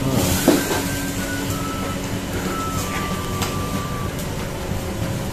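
Steady low rumble of a restaurant kitchen's gas wok stove and fans running, with a faint hum.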